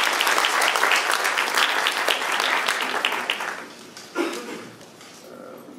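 Audience applauding, dying away about three and a half seconds in, followed by a single thump.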